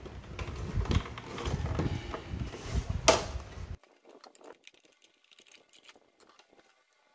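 The hard plastic cabinet of a Sony CFS-1110S cassette boombox is being handled and turned over, knocking and clicking. The sharpest click comes about three seconds in, then the sound drops suddenly to faint ticks.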